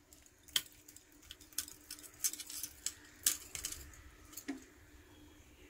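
Cheese being grated by hand over a plate of rice: a few light, irregular scrapes and clicks, over a faint steady hum.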